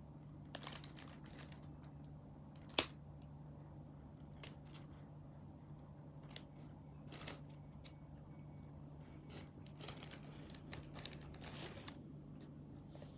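Scissors snipping off coralberry roots that grow out of the bottom of a plastic plant pot: a scattered series of sharp snips, the loudest about three seconds in. A steady low hum runs underneath.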